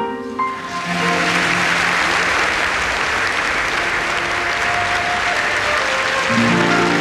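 Concert audience applauding at the end of a song, over soft held notes from the orchestra. About six seconds in, the orchestra comes in with lower sustained chords.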